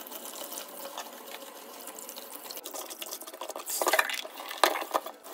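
Kitchen tap running onto limes, chillies and herbs being rinsed in a plastic colander in a stainless steel sink, a steady rush of water. A few louder splashes come about four seconds in as the colander is lifted and handled under the stream.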